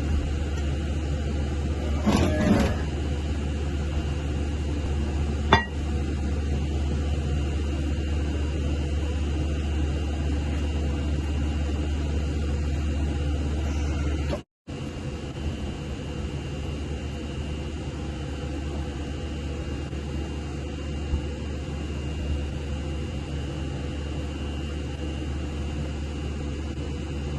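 Steady low electrical or machine hum with a faint constant high whine. A ringing metal clink comes about two seconds in and a sharp click a few seconds later. The sound cuts out briefly about halfway through.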